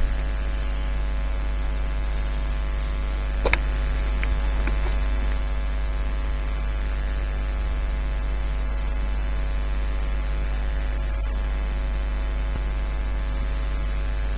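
Steady electrical mains hum, with its many overtones over a hiss of static, with one sharp click about three and a half seconds in.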